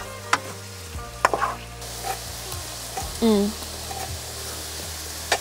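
Tofu frying in a pan: a steady sizzle that grows stronger about two seconds in, with a few sharp clicks and knocks of kitchen utensils.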